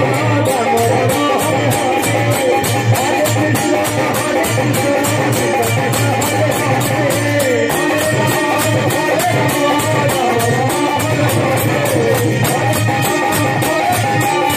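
Live kirtan music in a Holi folk tune: an instrumental passage, with a melody line wavering over a quick, steady beat of jingling percussion.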